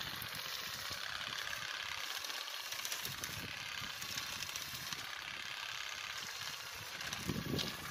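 Hand-held pole-mounted olive harvester running steadily as its head shakes the olive tree's branches, an even fast rattle.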